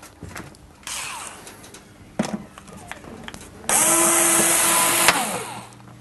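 Power screwdriver driving screws back into the top of a dishwasher door. A short, quieter run comes about a second in. A louder run of about a second and a half follows just past the middle, a steady whine that winds down as it stops.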